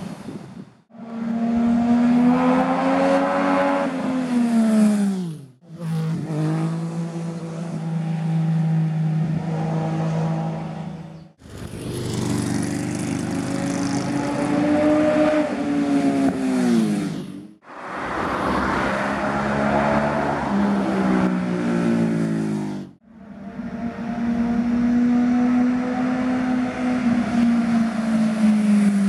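Motorcycles riding past one after another, five in turn, each engine's note dropping in pitch as it goes by. The sound breaks off sharply between passes.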